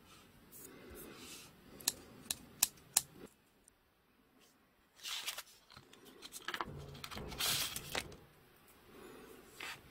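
Small decal scissors opened and closed by hand, their blades clicking sharply four or five times. After a short quiet gap, a plastic tool sleeve rustles as it is picked up and handled.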